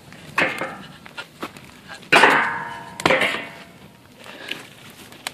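A dog barking three times, the loudest bark about two seconds in.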